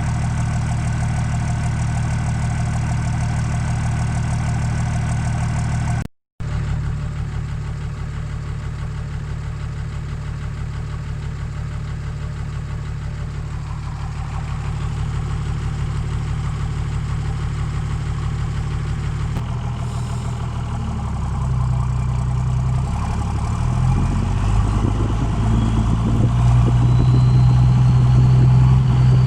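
1987 Toyota Land Cruiser HJ61's 12H-T inline-six turbo-diesel idling through its side-outlet exhaust, with a break about six seconds in. From about twenty seconds in the engine speed rises in steps and gets louder. Near the end a thin whine climbs slowly, the turbocharger spooling.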